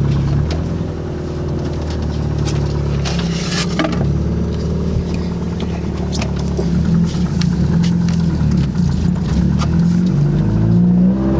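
Car engine running while driving, with road noise; the engine note shifts up and down in the second half.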